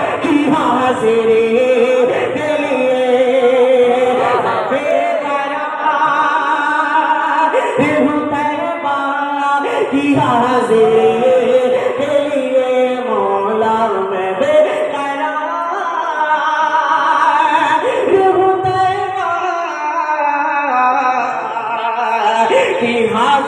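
A man sings an Urdu naat, a devotional poem in praise of the Prophet, as a solo voice through a microphone. He draws out long, ornamented notes in phrases that rise and fall, with brief breaths between lines.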